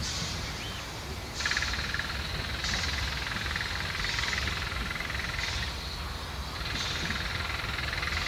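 Narrow-gauge steam locomotive pulling away, its exhaust chuffing in slow, evenly spaced hissing beats a little over a second apart, over a low rumble.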